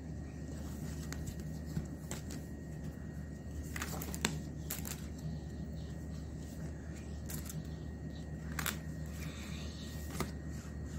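Paper pages of a spiral-bound workbook being turned and handled, giving a few brief rustles and clicks over a steady low hum.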